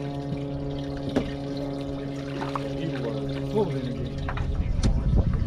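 A small electric motor on the boat hums steadily over water splashing, then cuts off about four seconds in. After that, wind rumbles on the microphone.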